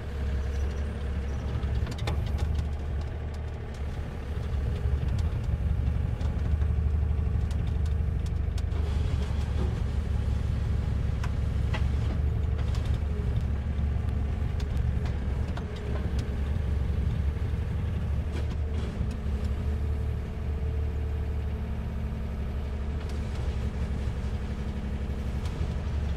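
Takeuchi TB045 mini excavator's diesel engine running steadily at idle, with a few faint clicks over it.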